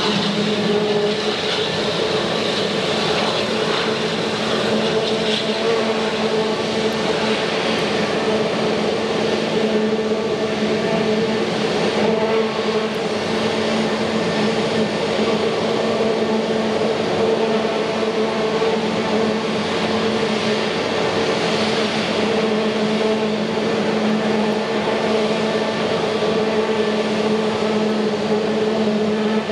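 The twin turbofan engines of an Airbus A321neo running at low taxi thrust as the airliner rolls slowly by: a steady drone with a constant low hum and no change in pitch.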